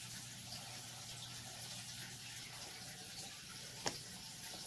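Faint steady hiss of room tone with a low hum, and a single light click near the end as the clear plastic deli cup holding the snake is handled.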